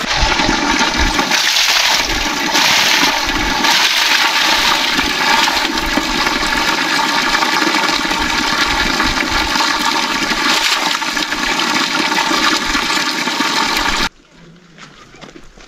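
Steady, loud rushing of water that cuts off abruptly about fourteen seconds in.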